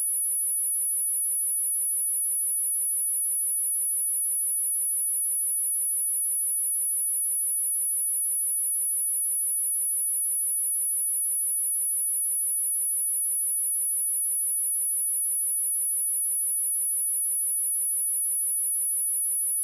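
A pure 11028 Hz sine-wave test tone, a steady very high-pitched whistle held at constant pitch and level.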